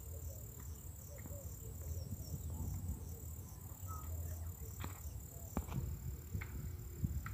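Rural outdoor ambience: insects trilling in a steady pulsing rhythm over a low rumble, with a few faint bird chirps and a couple of short clicks.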